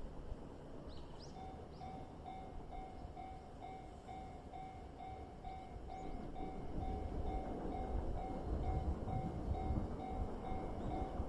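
A Japanese railway level-crossing warning bell starts ringing about a second in, an even electronic ding about three times a second. Under it, the low rumble of an approaching JR Freight train grows louder in the second half.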